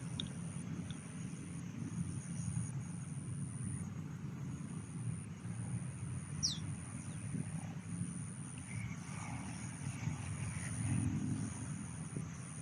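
Outdoor riverside ambience: a steady low rumble under a high, evenly pulsing insect trill, with a single quick descending bird whistle about six and a half seconds in.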